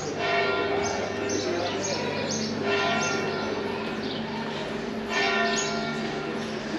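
A church bell tolling: three strokes about two and a half seconds apart, each ringing on, while small birds chirp rapidly and repeatedly.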